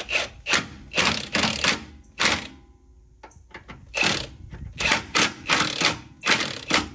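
Hand ratchet clicking in quick back-and-forth strokes while tightening the lower mounting bolt of a front shock absorber. There are about a dozen strokes, with a pause of a second or so midway.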